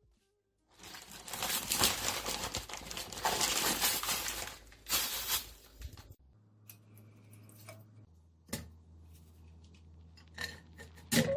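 Crinkling and tearing of packaging being handled and torn open for about five seconds, stopping abruptly. A faint low hum follows, with a few light clicks.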